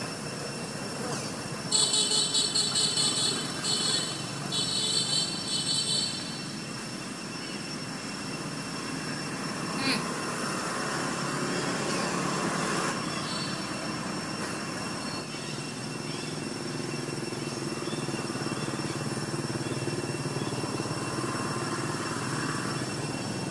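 Forest ambience: a steady high-pitched hum and a low background rumble. From about two seconds in come four loud bursts of rapid, high trilling calls, and a single sharp click follows near the middle.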